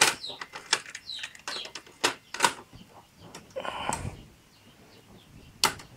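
A run of sharp clicks and knocks, with a short scrape about two-thirds of the way through, from cassette and audio equipment being handled. Birds chirp in the background.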